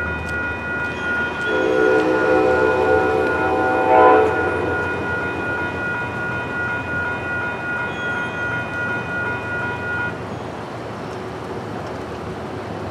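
Horn of Amtrak locomotive 705, a P32AC-DM, sounding one blast of about three seconds for the grade crossing, loudest as it ends. Under it the crossing bell rings steadily while the gates come down, and stops about ten seconds in.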